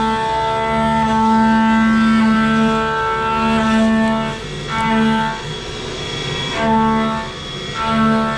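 Pramet SVC 22 face mill, 50 mm with three VCGT inserts, milling aluminium at 4456 RPM: a steady singing hum, the inserts' tooth-pass note at about 220 Hz. The note holds for about four seconds, then breaks off and comes back three times briefly as the cutter enters and leaves the cut.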